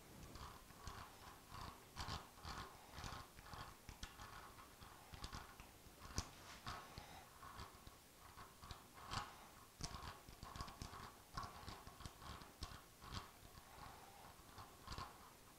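Faint, irregular clicks and light metallic taps of a hex key working in a steel four-jaw woodturning chuck, a Hurricane HTC125, as it is adjusted and tightened on the lathe.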